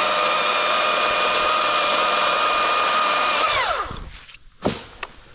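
Chainsaw held at full throttle with a steady high whine, then released about three and a half seconds in, its pitch falling away quickly. A single thump follows about a second later.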